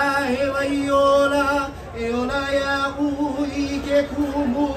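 Singing: a voice holding long, drawn-out notes in a slow melody, with a short break between phrases about two seconds in.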